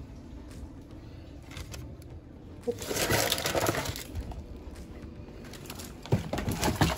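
A cardboard box and its baking-paper lining being folded up and crushed by hand: crinkling and crunching, loudest for about a second around three seconds in, then a few knocks near the end.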